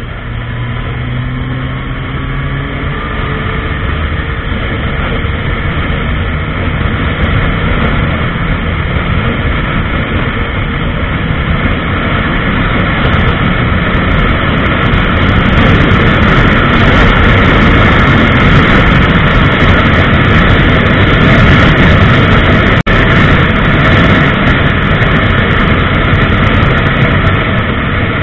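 Honda CBR1000RR's inline-four engine under way, its note rising as it accelerates in the first few seconds. Heavy wind noise on the microphone then builds and gets louder as the bike runs at highway speed.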